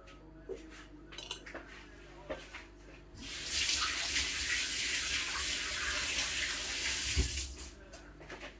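Kitchen tap running into a sink for about four and a half seconds, starting about three seconds in and stopping near the end. A few light clicks and knocks come before it, and a dull thump just before it stops.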